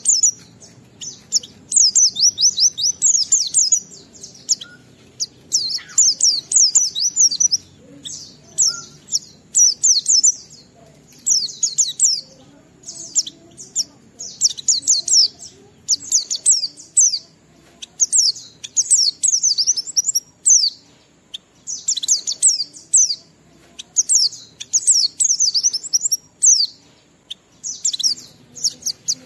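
White-eye (pleci) singing: rapid, high twittering phrases of a second or two each, repeated one after another with short pauses.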